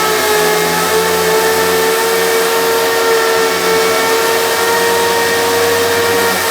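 3M 28502 pneumatic random-orbital vacuum sander, hooked to a dust-extraction vacuum, running steadily with a high whine over air hiss while sanding body filler.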